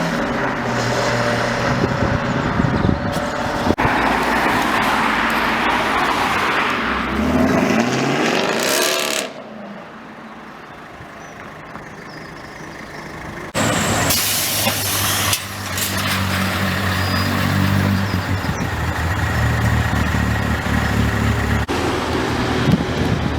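Modified cars' engines and exhausts revving and accelerating past. About eight seconds in, one engine note rises and then falls away; the sound drops off sharply for a few seconds, then engines rev loudly again.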